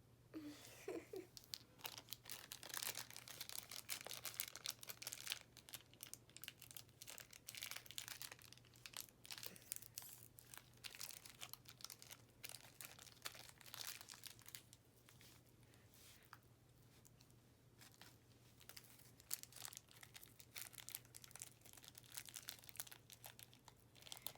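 Small packaging bag being crinkled and torn open by hand: irregular crackling and rustling, with a quieter stretch in the middle.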